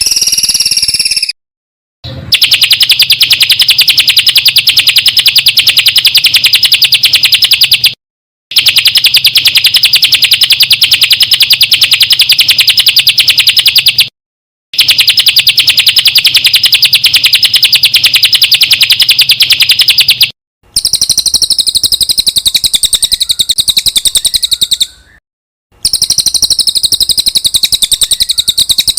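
A small songbird's song played back loud: a very fast, steady trill of rapid chirps high in pitch, cut into blocks of about six seconds with abrupt short silences between them. In the last two blocks the song changes to a higher, more varied chattering.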